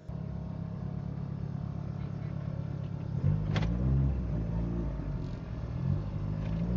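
Car engine running at idle, a steady low drone heard from inside the cabin. It grows louder for a moment about halfway through.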